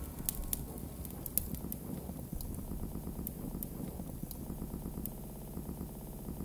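Live experimental electronic music in a quiet passage: a low, grainy rumble with scattered sharp clicks and crackles.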